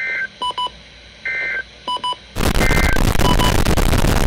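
Three short warbling EAS SAME data bursts about a second apart from a NOAA Weather Radio broadcast, the end-of-message code that closes the warning, with paired short electronic beeps from the handheld weather radio in between. About halfway in, loud radio static hiss takes over.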